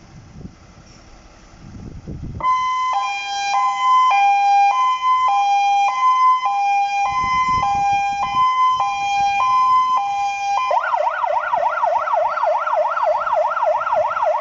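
Fire engine siren sounding a two-tone high-low pattern, switching about two thirds of the way through to a fast rising-and-falling yelp. The vehicle's engine idles underneath before the siren starts.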